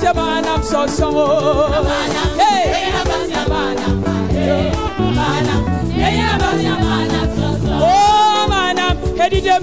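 Gospel praise singing: voices singing a worship song with a wavering, ornamented melody over instrumental accompaniment with a steady bass line.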